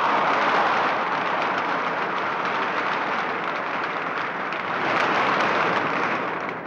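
Football crowd in the stands cheering and applauding, a dense steady roar of clapping and shouting that eases a little midway and swells again about five seconds in.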